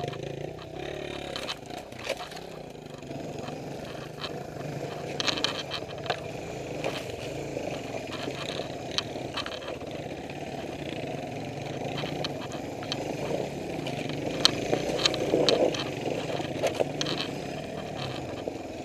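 Suzuki DR350 single-cylinder four-stroke trail-bike engine running at low revs while riding up a rocky, overgrown trail, with frequent sharp cracks and scrapes of branches and brush against the bike.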